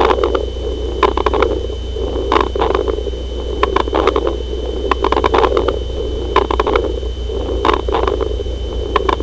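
Teaching recording of chest sounds heard through a stethoscope: sharp clicks, often in pairs, recur about every second and a half over a rough, rumbling noise that swells and fades, with a steady low hum underneath.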